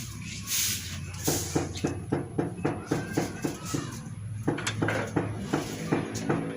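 A run of regular, sharp clicks, about three or four a second, starting about a second in and stopping near the end, over a steady low hum.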